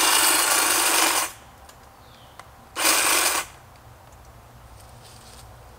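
Black & Decker battery-powered hedge trimmer running as it cuts limbs overhead. It stops about a second in, then runs again in one short burst of about half a second near three seconds in.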